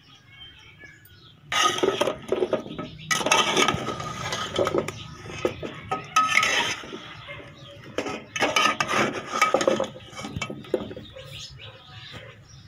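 A metal slotted spoon scraping and knocking against a cooking pot as potato chunks are stirred through the masala, in irregular clusters of clinks and scrapes that start about a second and a half in.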